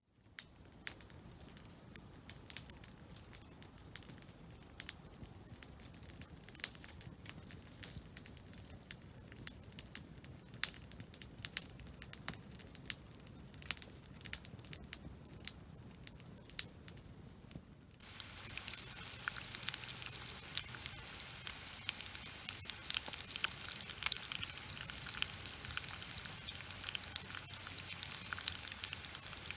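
Wood campfire crackling, with scattered sharp pops. About two-thirds of the way in it gives way to a louder, steady sizzle full of small crackles: bacon and eggs frying in a skillet.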